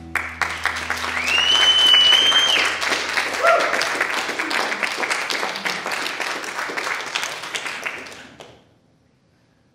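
Audience applauding, with one long whistle that rises, holds and falls in the first few seconds. The applause dies away about eight and a half seconds in.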